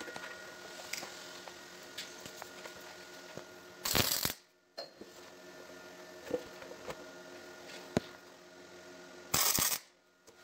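Two short arc-welding tacks, each a half-second hiss, about four seconds in and near the end, fixing a steel mount bracket to the buggy's tube frame. A few light metal clicks come between them.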